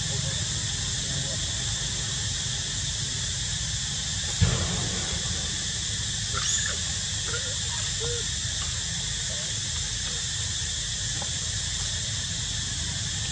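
Steady high-pitched drone of insects, likely cicadas, in the forest. A single dull thump about four seconds in, and a few faint short squeaks around six to seven seconds in as one macaque grabs at the other's mango.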